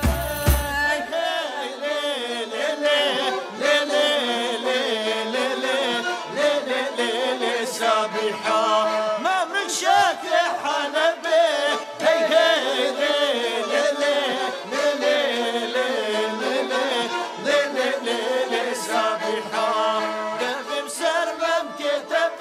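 A traditional Mardin folk song sung by several voices together over instrumental accompaniment. The low beat underneath stops about a second in, leaving the voices and the higher instruments.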